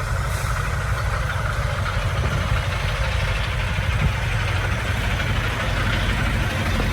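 Semi-truck diesel engine idling steadily.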